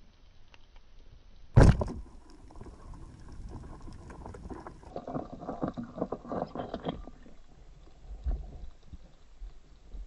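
Underwater speargun shot: a single sharp crack about one and a half seconds in. It is followed by several seconds of clicking, rattling and knocking as the speared fish thrashes on the shaft against the rocky, sandy bottom, with one more knock near the end.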